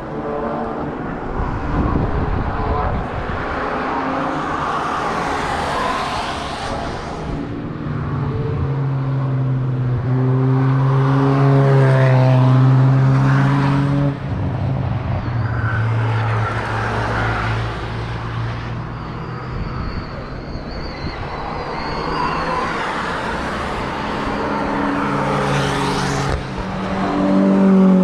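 Cars driving past one after another on a race track, engines pulling hard. Their engine notes swell and fade as each passes and overlap with the next, with the loudest pass in the middle and another car closing in near the end.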